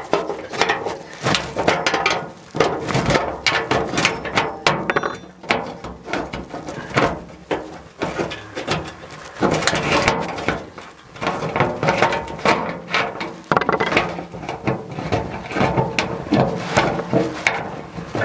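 Spanner working the nut off a bolt that holds a wheelbarrow's thin sheet-steel tray to its tubular frame: a steady run of rapid metallic clicks and knocks, with the tray and frame rattling as the nut is turned.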